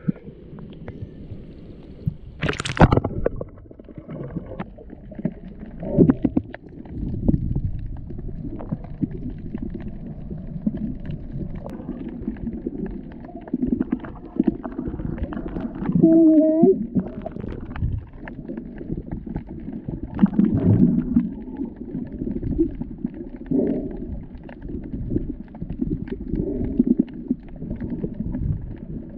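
Muffled underwater rumbling and gurgling of moving water around a snorkeler's camera, with a sharp splash about three seconds in.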